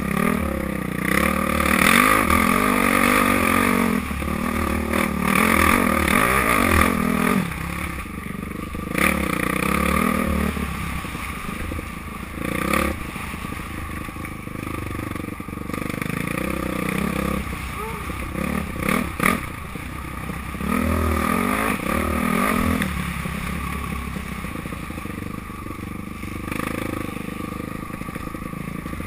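Dirt bike engine revving up and down as it is ridden hard over a rough dirt trail, heard from the rider's helmet camera. The engine pulls hardest for the first seven seconds and again about twenty seconds in, easing off between. Now and then there are sharp knocks as the bike goes over rough ground.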